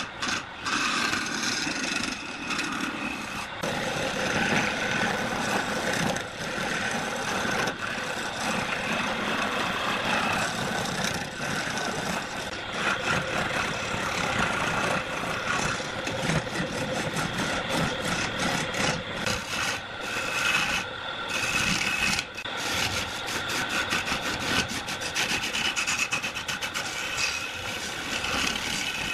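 Wood lathe spinning a large wooden cylinder while a long-handled turning gouge cuts into it, a continuous rough scraping and shaving sound as chips and ribbons of wood tear off the workpiece.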